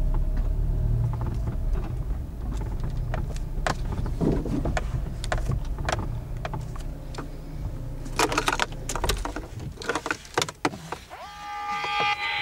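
Low rumble with scattered clicks and knocks, then about a second before the end an electronic alarm siren sets off, gliding up into a steady, loud multi-tone wail: the tripwire alarm triggered by the broken fishing line.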